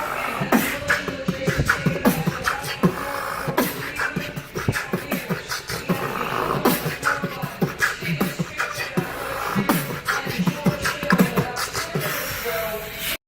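Beatboxing: a fast stream of mouth-made drum hits and clicks mixed with short vocal tones, cutting off suddenly near the end.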